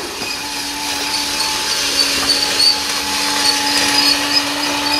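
Battery-powered toy train running along its track, its small electric motor giving a steady whir.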